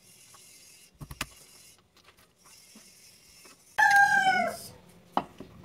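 An animal's call, loud and falling in pitch, lasting under a second about two-thirds of the way in. A couple of sharp knocks come about a second in.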